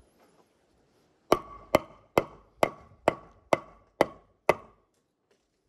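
Claw hammer striking at a round wooden roof pole: eight quick blows about two a second, each with a short ring.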